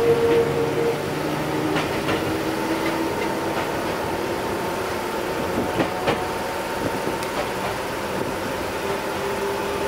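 Enoden 500-series electric train running along the track, heard from the driver's cab: steady running noise with a faint hum, and two pairs of short clicks from the wheels, about 2 seconds and about 6 seconds in.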